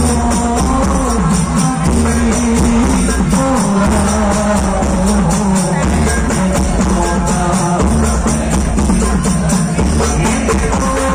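Hadrah group singing a sholawat in unison through a PA system, the voices carrying a wavering melody over rebana frame drums beating a steady, quick rhythm.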